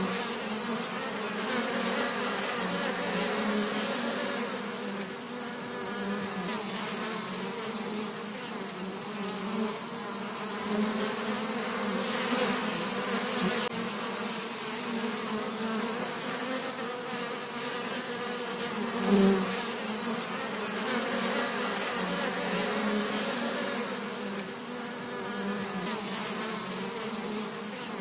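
Bees buzzing continuously, a dense droning hum that swells and fades, with one bee passing louder about 19 seconds in.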